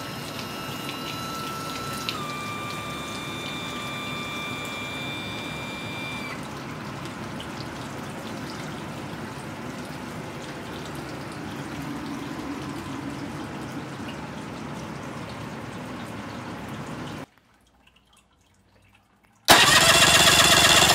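Three-cylinder two-stroke Tohatsu 50 outboard running steadily on a test stand, with cooling water splashing. The sound stops abruptly about 17 seconds in. Near the end, the engine is cranked on its starter for a compression test, a loud, even burst of about a second and a half.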